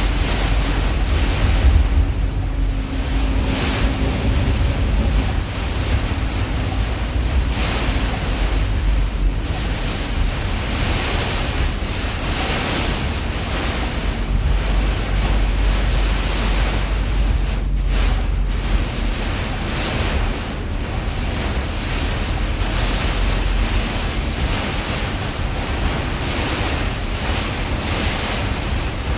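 Heavy rain pouring down steadily, with wind buffeting the microphone as a low rumble.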